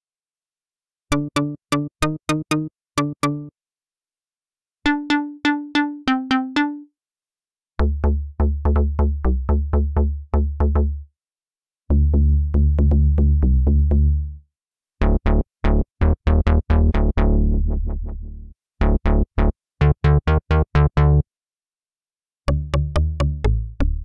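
Cherry Audio Minimode, a software emulation of the Minimoog synthesizer, playing pluck presets: short plucked synth notes in quick runs, one preset after another with brief pauses between. The later runs are deeper and heavier in the bass.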